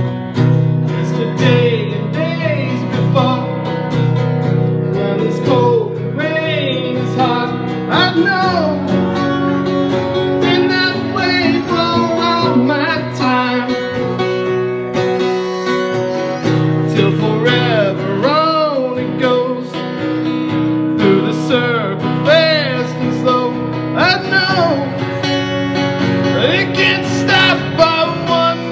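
Live song: a strummed cutaway acoustic-electric guitar accompanying a woman's singing voice, the sung notes wavering in pitch.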